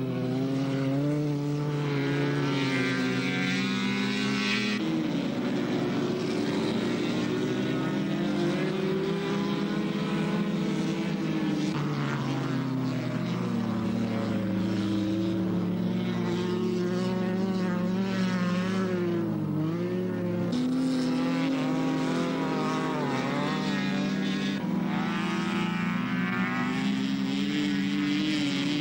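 Several racing car engines running hard at high revs as cars slide past on the ice track, the pitch rising and falling as they accelerate and back off, with a new engine note taking over every few seconds.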